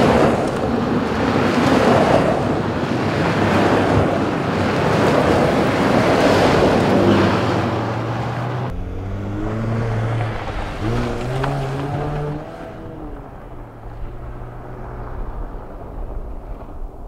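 Jeep SUVs driving by on a dirt trail, engine and tyre noise swelling loud and falling back as they pass. About nine seconds in the sound changes to a single engine accelerating, its pitch rising and stepping back a few times through gear changes, then running on more steadily and fainter.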